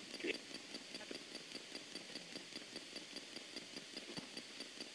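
PSB-7 spirit box sweeping the AM band every 200 ms: faint radio static broken by a regular tick about five times a second as it steps from station to station, with a brief garbled snatch of radio sound just after the start.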